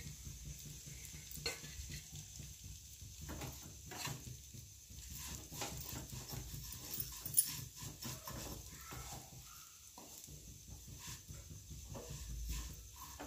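Spatula stirring and scraping fine vermicelli as it dry-roasts in a little ghee in a nonstick frying pan: light scrapes and taps over a low steady hum, with one sharper knock about seven seconds in.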